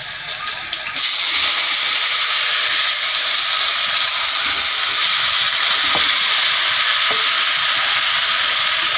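Masala-marinated meat pieces dropped into hot oil in a pan, sizzling loudly; the sizzle starts suddenly about a second in and holds steady.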